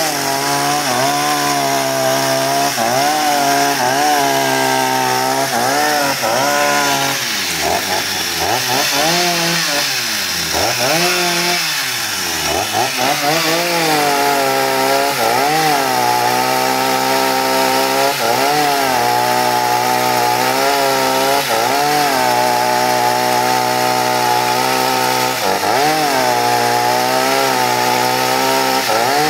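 Stihl MS 250 two-stroke chainsaw running at high revs while cutting through a fallen tree trunk. Its pitch dips and recovers over and over as the chain bites into the wood, with the deepest dips about a third of the way in.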